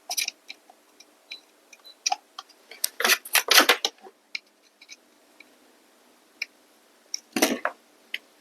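Light clicks and taps of small hand tools handling a replacement fuse on a power-supply circuit board, with a quick flurry of clicks about three seconds in and another about seven seconds in.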